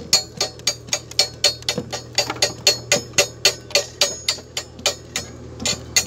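A bent piece of rebar tapping the slag off a freshly laid 6013 stick-weld bead on steel rebar, quick sharp metal-on-metal strikes about four or five a second with a slight ring, chipping the bead clean.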